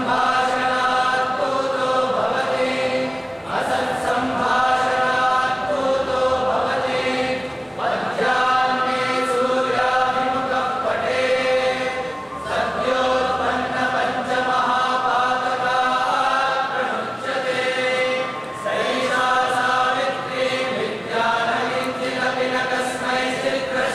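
A group of voices chanting in unison, in long held phrases with short breaks every few seconds.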